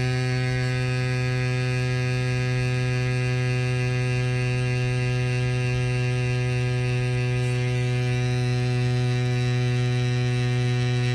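Cycplus Cube mini electric compressor running while it pumps air into a mountain bike tyre through the valve: a steady buzzing hum at one fixed pitch.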